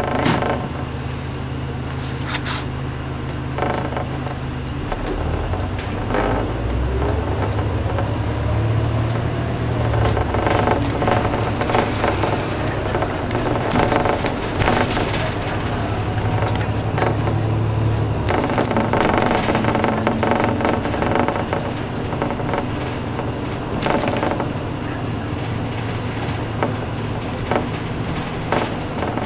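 City bus engine running, heard from inside the cabin, with rattling and clicking from the bus interior. The engine note changes about five seconds in.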